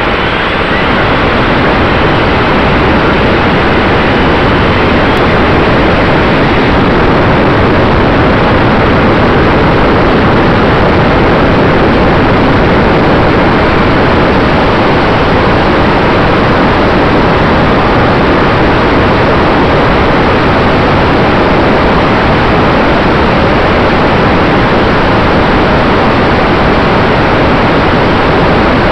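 Loud, steady rushing of wind and propeller noise picked up by an onboard camera on an electric E-flite T-28 Trojan RC airplane under power, from the takeoff roll into flight, with a faint steady whine underneath.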